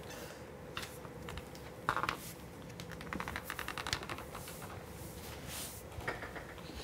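Faint clicks, taps and rustles of people moving about a quiet room, with a quick run of small ticks about three seconds in.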